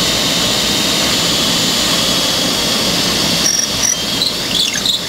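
Handheld electric drill boring a starter hole through plywood, running with a steady whine for about three and a half seconds, then running unevenly near the end.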